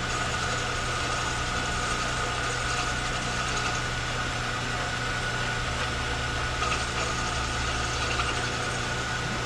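Machine lathe running steadily while a cutting pass is taken down the part, a constant hum with a steady high whine.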